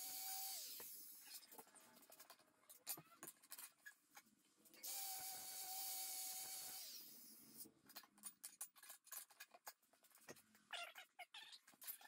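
Angle grinder with an abrasive disc grinding a metal piece held in a bench vise, with a steady whine over a grinding hiss. It winds down within the first second, runs again for about two seconds starting about five seconds in, then spins down again. Scattered light clicks and knocks follow.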